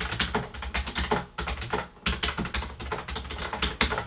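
Rapid, irregular typing on a slim chiclet-key keyboard with a silicone cover over the keys, which dampens the key clicks a bit.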